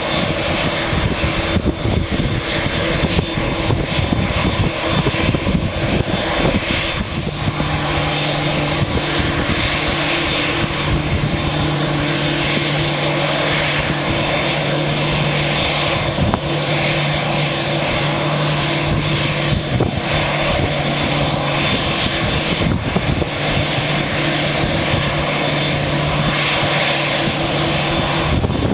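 Boeing 787-8 jetliner's twin turbofan engines running at taxi power, a steady whine and hum. Gusty wind rumbles on the microphone, heaviest in the first several seconds.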